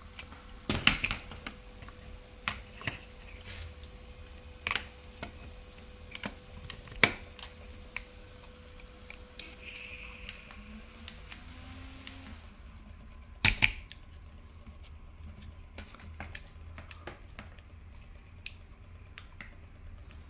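Scattered plastic clicks and knocks from handling small battery-powered mini fans: parts snapping and the battery compartment of a handheld fan being worked. The loudest is a sharp double click about two-thirds of the way in, and a faint steady hum stops about halfway through.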